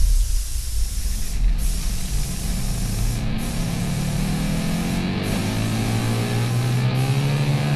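Rock intro music with low guitar tones building, over a steady hiss of an air spray gun spraying paint. The hiss breaks off briefly about every two seconds.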